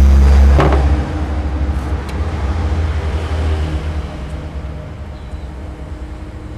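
A motor vehicle's engine running nearby with a low, steady hum, loudest at first and then fading over the next few seconds.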